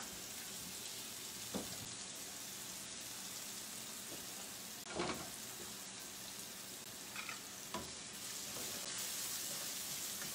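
Chopped onions sizzling steadily in hot sunflower oil in a frying pan, just after going in, with a few light knocks.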